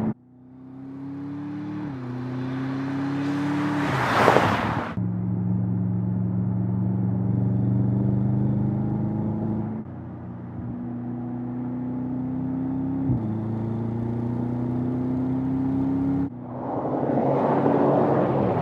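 Audi RS7 Sportback Performance's 4.0-litre twin-turbo V8 engine and exhaust pulling through the gears, the pitch climbing slowly and dropping suddenly at each upshift, several times. A loud rushing noise swells about four seconds in and again near the end.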